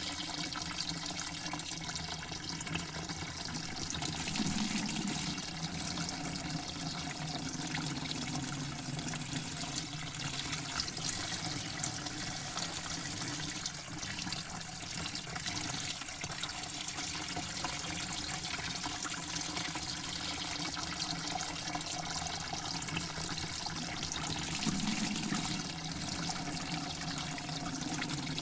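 Water running steadily, a continuous splashing flow that swells slightly a few times.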